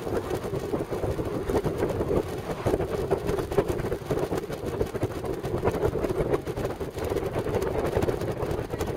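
Car driving along, heard from inside the cabin: a steady rumble of engine and tyres on the road, with a constantly wavering loudness.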